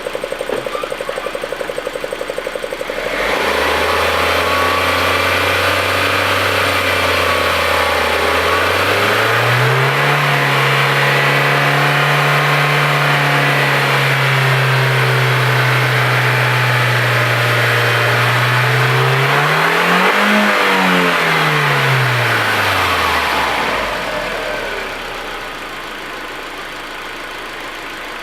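Audi A4's 1.8-litre turbo four-cylinder idling, then revved and held at a raised speed, stepped up higher, given one quick blip and let fall back to idle.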